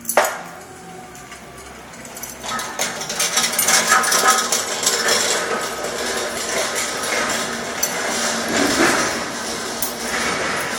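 Metal cart parts being fitted together: one sharp knock just after the start, then from about two and a half seconds on a steady clatter of metal clinking and scraping as the crossbars and end panels are worked into place.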